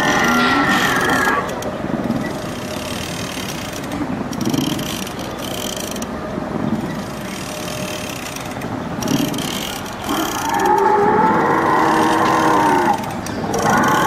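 Battery-powered walking dinosaur ride with its electric drive and leg mechanism running as it walks. About ten seconds in it plays a loud recorded dinosaur roar from its speaker, a held, bending call lasting about three seconds, and a second roar starts near the end.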